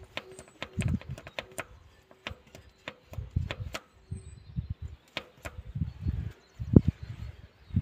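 Zetor 6045 tractor's diesel engine running soon after a cold start, heard as uneven sharp ticks of engine clatter. Low, dull thumps come and go, the loudest near the end.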